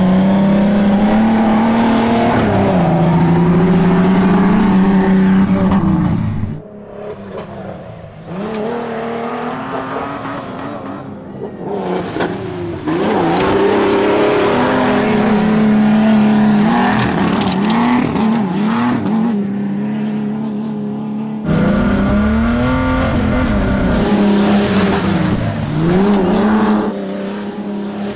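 Modified off-road trucks, a 1991 Ford Explorer and a 1991 Jeep Cherokee XJ, racing flat out on dirt: engines revving hard, the pitch climbing and then dropping at each gear change. The engine sound falls away sharply about six seconds in and comes back loud about twenty-one seconds in.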